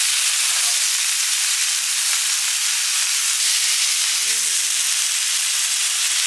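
Food sizzling in a hot pan, a loud, even hiss. A brief faint voice sounds about four seconds in.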